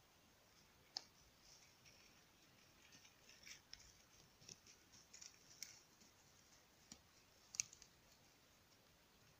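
Near silence with faint, scattered snaps and crackles of dry twigs and forest litter underfoot, the sharpest about a second in and near the end.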